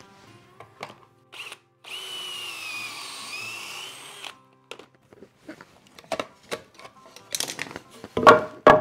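Cordless drill running a Kreg stepped pocket-hole bit into 4x2 timber through the jig for about two and a half seconds, starting about two seconds in, with a steady whine. Then clicks and knocks of the clamp, jig and board being handled, loudest near the end.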